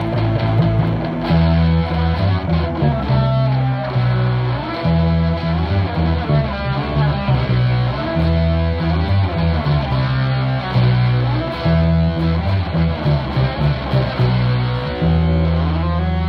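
Electric bass and electric guitar played live through amplifiers, instrumental: a bass line of held low notes changing every second or two under an electric guitar melody.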